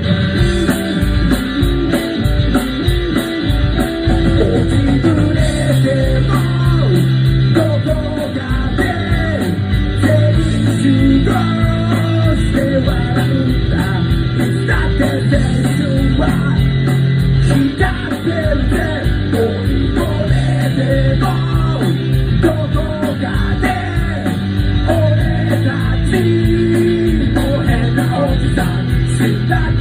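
A rock band playing live: electric guitar, bass and a steady drum beat, with a singer.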